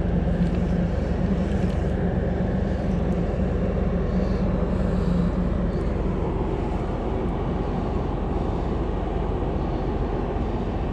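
Low, steady drone of large ships' diesel engines and generators running across the water, with a hum that is strongest for the first six seconds or so and then weakens.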